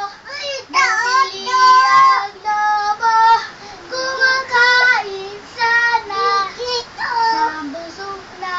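A young child singing a Tagalog nursery song in a high voice, a string of held notes one after another.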